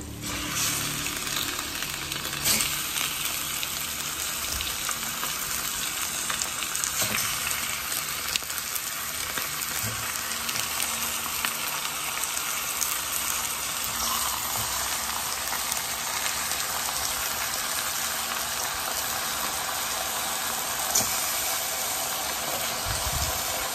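Pork leg pieces frying in hot oil with sautéed garlic and onion in a stainless steel pan: a steady sizzling hiss, broken now and then by a sharp click or pop as pieces go in and shift.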